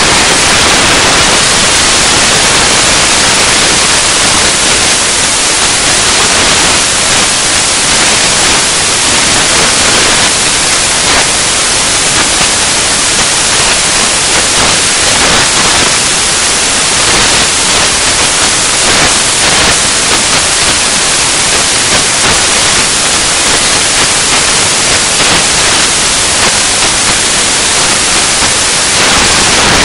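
Loud, steady hiss like static, with nothing else standing out of it.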